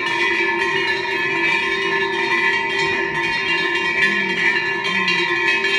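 Metal festival bells or gongs struck rapidly and without pause, making a steady clanging ring.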